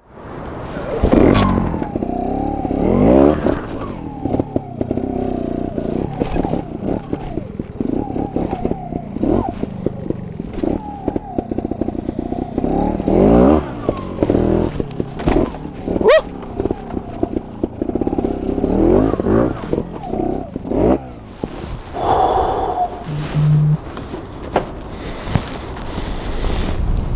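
Modern trials motorcycle ridden through a rocky section: the engine is blipped and revved again and again, its pitch rising and falling, over a steady run of knocks and clatter from the bike on the rocks.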